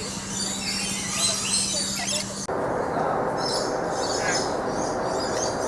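Many birds chirping and squeaking at once, a dense mix of short high calls. About two and a half seconds in, the background changes abruptly from a low steady hum to a steady rushing noise under the birdsong.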